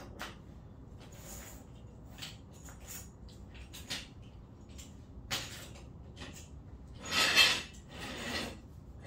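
Handling noises from rocks and tools being set down and moved: scattered clicks and knocks, with a louder, short noisy rush about seven seconds in and a weaker one just after.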